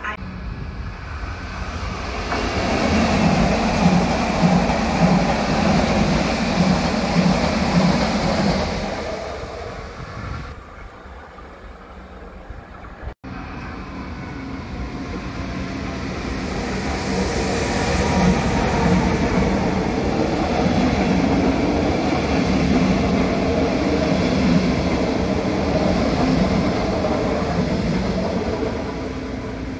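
Trains passing a station platform: a train runs by with a regular beat of wheels on the rails, then fades about ten seconds in. After a short lull, a red DB Regio double-deck train passes close by with the same wheel beat.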